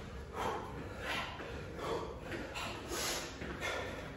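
Heavy breathing from hard exercise: a run of sharp, puffing exhales about every two-thirds of a second, from men winded by burpees and jogging in place.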